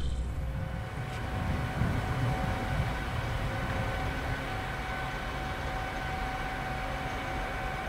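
Class 232 'Ludmilla' diesel locomotive's 5D49 V16 diesel engine running in the distance: a steady low rumble with a thin, even whine held over it.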